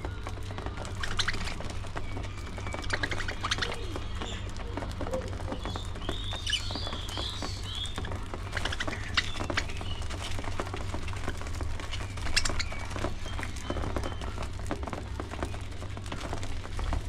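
Budgerigars chirping and warbling: short scattered chirps and a few rising and falling whistled notes, over a steady low hum.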